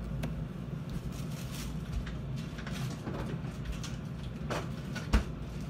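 Light knocks and handling noises off-camera over a steady low hum, with one sharper knock about five seconds in.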